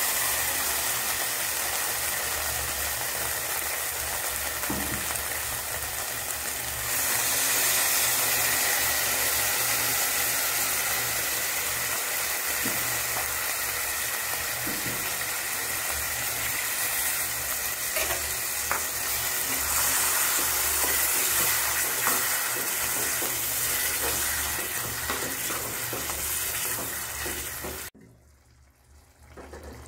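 Freshly ground onion-tomato masala paste frying in hot oil in a pan: a steady sizzle with a few faint clicks. It cuts off abruptly near the end.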